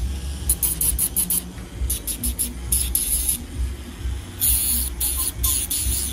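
A podiatry nail drill spinning a small abrasive disc against the edge of a toenail, grinding in short rasping strokes as the disc touches the nail. There is a longer stretch of grinding a little past four seconds in.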